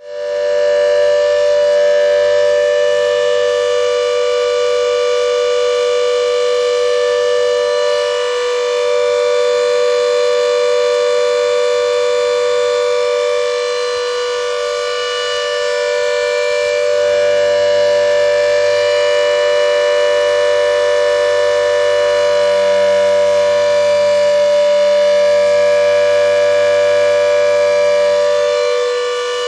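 Civil defence siren sounded for a mock drill, holding one steady pitch with gentle swells and dips in loudness.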